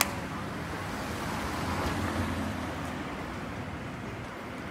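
Steady street traffic noise, a low rumble under a constant hiss, swelling slightly about two seconds in, with a sharp click at the very start.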